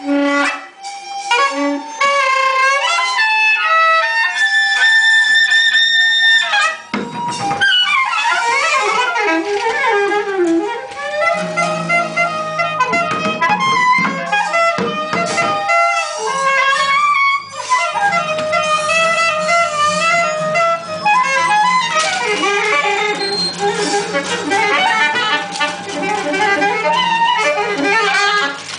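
Live free-improvised music: a wind instrument plays held and stepped notes, then wavering, sliding tones, over other pitched sounds from the ensemble. A low steady drone comes in about eleven seconds in.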